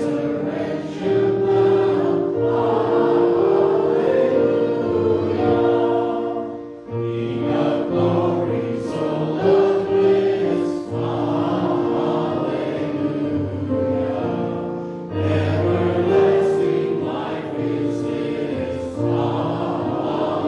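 A choir singing in long held phrases, with short breaks between phrases about seven and fifteen seconds in.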